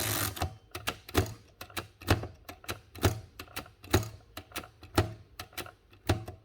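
Keys of an early Erika folding typewriter being struck one after another, about three sharp mechanical clacks a second, stopping just before the end.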